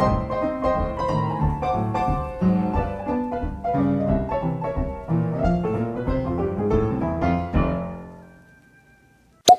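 Solo piano background music, a gentle run of notes that fades out about eight seconds in, followed by a single sharp click near the end.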